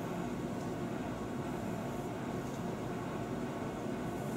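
Steady background hum and hiss with no distinct events: room tone.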